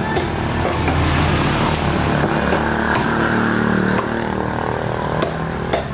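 A motor vehicle's engine runs close by, louder for the first four seconds and then easing off. Near the end a knife strikes the wooden chopping block twice.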